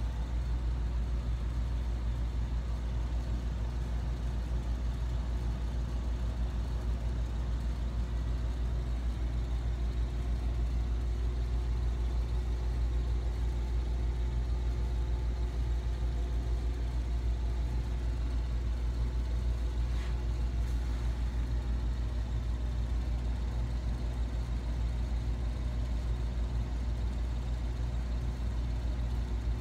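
Steady low rumble with a faint hum, unchanging throughout, with no distinct events.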